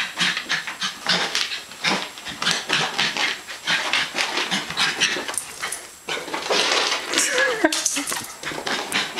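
A West Highland white terrier and a person scuffling about during a chase on carpet, making quick, irregular rustling and scrabbling noises.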